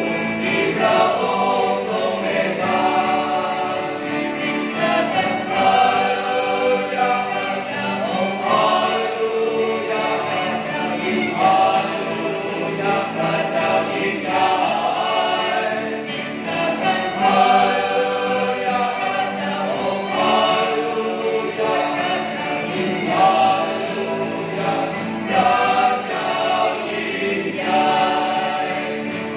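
Small mixed choir of men's and women's voices singing a hymn together, accompanied by acoustic guitars and a violin.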